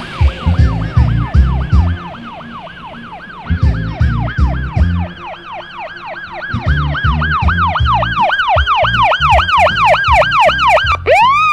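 Siren yelping, its pitch rising and falling about three to four times a second and quickening toward the end, then sweeping sharply up and cutting off. Underneath runs music with a heavy thumping bass beat.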